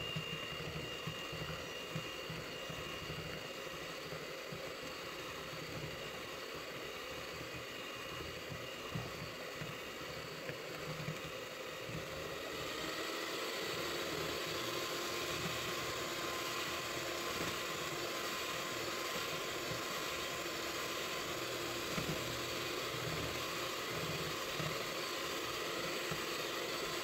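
Electric hand mixer running steadily, its beaters whipping egg yolks, whole eggs and sugar in a plastic bowl. About halfway through it gets a little louder and takes on a new steady hum.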